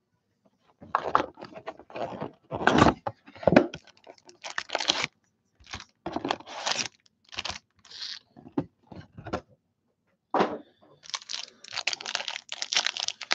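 Cardboard and foil handling noises, a string of short separate rustles and scrapes, as a Panini Prizm hobby box is opened and its foil card packs are pulled out. Near the end comes a longer, denser crinkling as a foil card pack is torn open.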